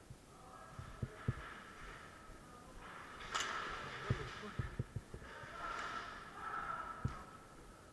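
An airsoft player moving and breathing after being hit: soft irregular thumps with three breathy rushes of hiss, each lasting about a second.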